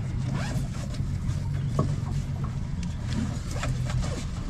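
Fishing boat's engine running with a steady low hum, with scattered light clicks and knocks on board.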